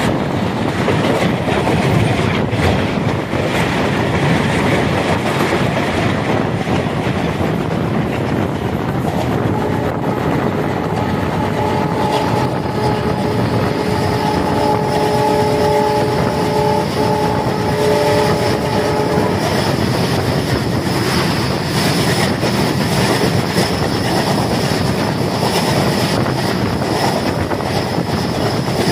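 Running noise of an express train coach at speed, heard at an open door: a steady rush of air and wheels on rail. About ten seconds in, a multi-tone train horn sounds, held for nearly ten seconds with a couple of short breaks.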